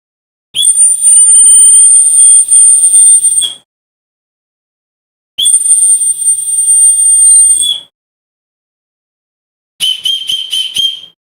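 Dog whistle blown in two long, shrill, high-pitched blasts, with a pause between them. Near the end comes a quick run of about five short toots.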